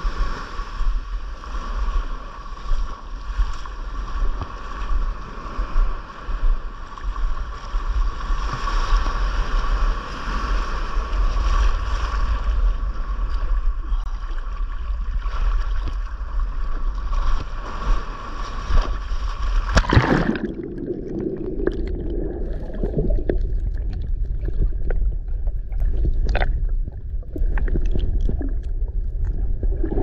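Seawater surging and washing around a GoPro held at the waterline, with a heavy low rumble from the water against the microphone. About two-thirds of the way through, the camera goes under and the sound abruptly turns muffled and underwater, with scattered small clicks.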